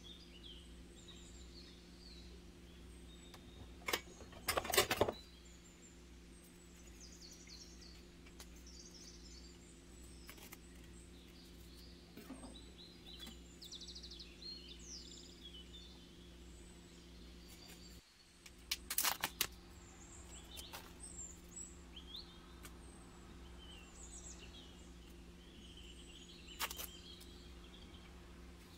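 A plastic tofu tray being handled, with three bursts of sharp crackles from the plastic, about four seconds in, near the middle and near the end. Birds chirp faintly in the background over a steady low hum.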